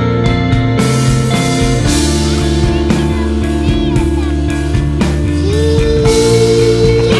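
Background rock music with drums and guitar, steady and loud; a note slides up about five seconds in and is held.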